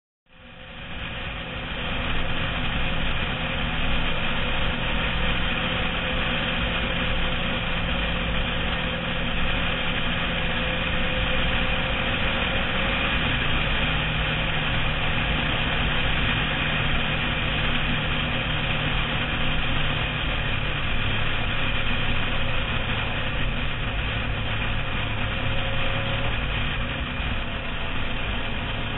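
Sport motorcycle's engine running at road speed, heard from a camera mounted low on the bike, with steady wind noise over the microphone. The sound fades in at the start, and the engine note shifts a little around the middle.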